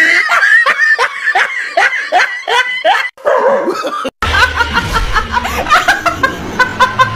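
A woman laughing hard in quick, repeated bursts of about three a second, broken by short cuts about three and four seconds in.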